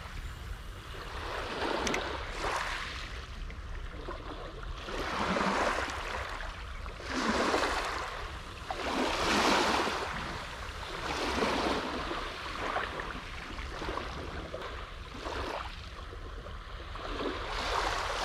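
Small waves washing up and draining back over a sand-and-gravel beach, a hissing wash that swells and fades about every two seconds.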